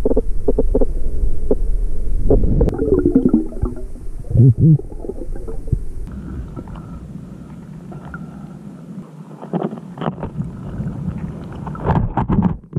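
Underwater sound picked up by a camera in its housing: a low rumble with scattered clicks and crackles. There is a gurgling, bubbling stretch about three to five seconds in, and a cluster of clicks near the end.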